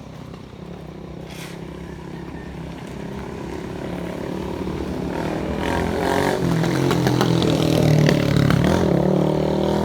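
A motor vehicle's engine running and drawing closer, growing steadily louder, loudest near the end.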